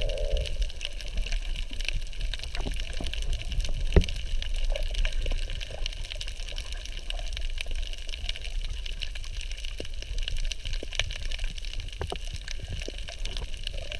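Underwater sound picked up by a camera below the surface: a steady low rumble of water with scattered clicks and crackles, and one sharper knock about four seconds in.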